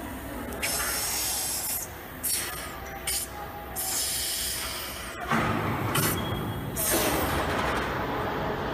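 Compressed air hissing in a series of short bursts as the pneumatic cylinders of a discharge-chute bellows seal are worked, with rougher rubbing and handling noise from about halfway through.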